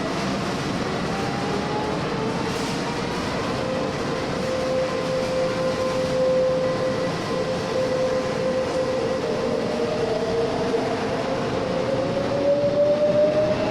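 Train running on the rails, a steady rumble with a sustained whine that rises in pitch near the end.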